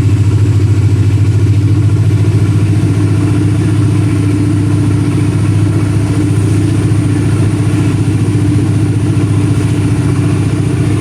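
ZCU-30 diesel-electric locomotive's engine running with a low, steady chugging.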